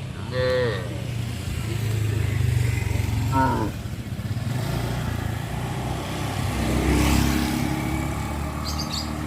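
A motorcycle engine running on the road, growing louder to a peak about seven seconds in as it passes. Two brief calls sound about half a second and three and a half seconds in.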